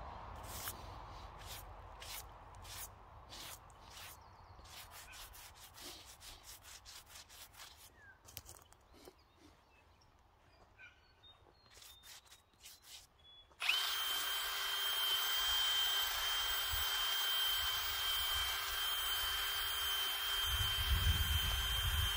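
A run of short, evenly spaced strokes, about two a second, which quicken and then die away. About fourteen seconds in, a small electric power tool switches on suddenly and runs with a steady high whine, with a heavier rumble added near the end.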